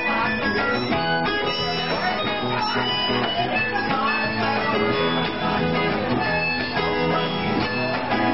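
Live band music led by an acoustic guitar, playing steadily.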